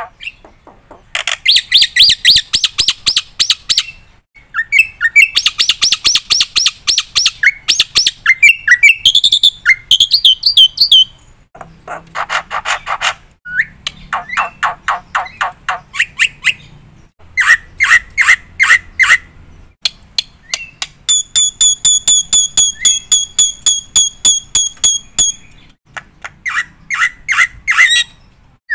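Black-winged myna (jalak putih) in full loud song: bursts of fast repeated harsh chattering notes a few seconds long, broken by short pauses, with a run of rapidly repeated clear whistled notes about two-thirds of the way through.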